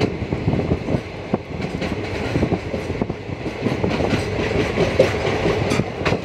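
Passenger express train running at speed, heard from on board a coach: a steady rumble with irregular clattering of the wheels over the rails.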